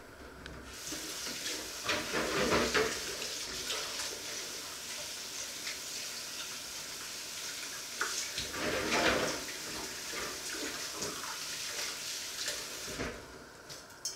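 Kitchen tap running into a sink, turned on just under a second in and shut off abruptly near the end. The splashing grows louder twice along the way.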